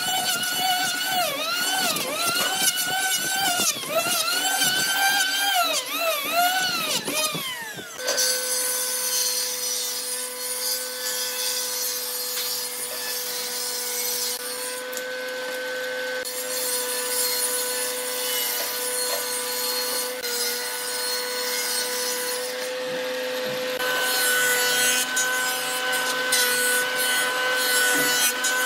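Handheld electric power planer shaving a wooden slab, its motor whine sagging in pitch each time it bites into the wood and recovering, then falling away about eight seconds in. A large Hitachi stationary jointer-planer then runs with a steady hum while a long slab is fed over its cutterhead, the cutting noise growing louder near the end.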